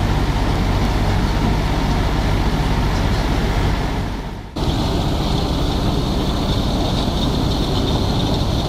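A vehicle engine running with a steady low rumble. It fades and breaks off about four and a half seconds in, then starts again at once at the same level.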